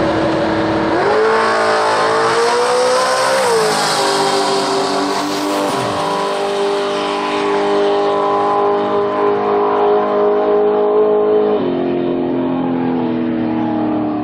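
Ford XY Falcon drag car making a full-throttle quarter-mile pass. The engine note climbs and drops at gear changes about one and three and a half seconds in, holds steady down the track, then drops again near the end.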